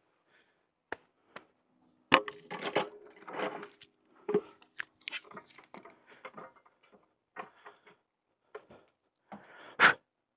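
Scattered knocks, clicks and rustling from gear being handled, with a sharp knock about two seconds in and another near the end. A faint steady hum sits underneath for a few seconds in the middle.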